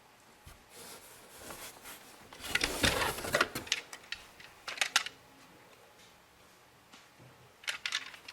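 Plastic parts of a stick vacuum being handled and clicked together, the vacuum not running: a cluster of rattles and clicks about three seconds in, a few sharp clicks around five seconds, and another quick run of clicks near the end.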